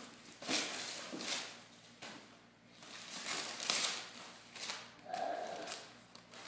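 Christmas wrapping paper being torn and crinkled off a present in a series of short, irregular rips.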